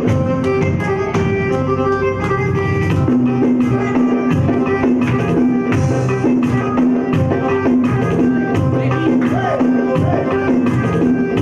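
Loud dance music with a steady, driving drum beat under held melody notes. A couple of short wavering glides come in near the end.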